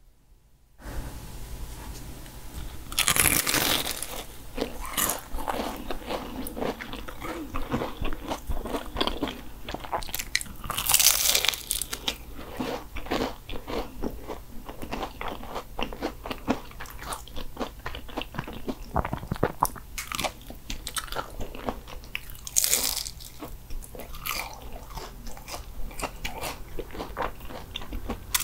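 Biting and chewing Portuguese egg tarts (nata), their flaky pastry shells crunching in a steady run of small crackles, with louder crunching bites about 3, 11 and 23 seconds in.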